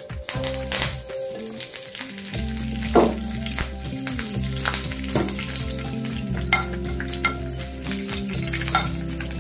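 Food sizzling and crackling as it fries in hot oil, with sharp pops now and then. Background music with steady sustained notes comes in about two seconds in.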